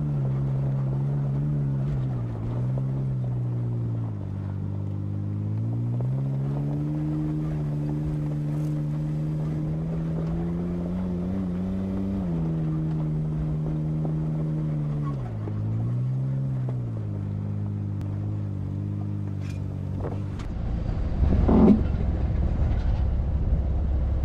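Off-road vehicle engine climbing a rough dirt trail, its pitch rising and falling as the throttle is worked. About twenty seconds in it drops to a low idle, with a few knocks and rustles near the end.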